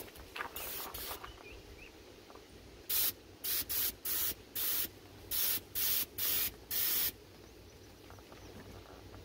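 Gravity-feed paint spray gun on an air hose, triggered in short bursts. Two fainter hisses come about half a second in, then about nine quick, sharp hisses follow one after another through the middle.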